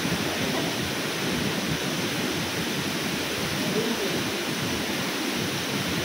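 Waterfall pouring into a pool: a steady rush of falling water.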